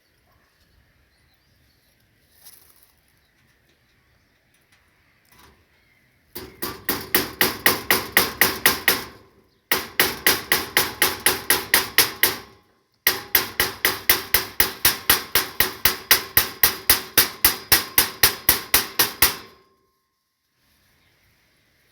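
Hammer driving nails during fence repair: three runs of rapid, even, ringing strikes, about five a second, with short pauses between them.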